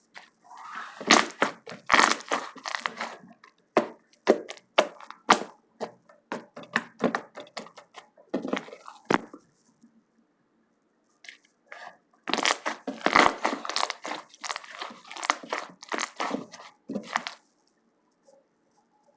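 Slime being squeezed and pressed by hand, making a dense crackling and crunching of sharp clicks. There is a short pause about ten seconds in, then another long burst of crackling.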